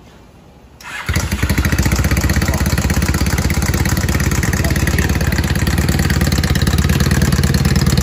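Honda CBR 450 SR parallel-twin engine running from about a second in with a loud, rapid, even knocking (a huge noise). The mechanic likens it to a loose piston-pin retaining clip hitting the cylinder wall, but says a broken cam chain tensioner makes a similar noise.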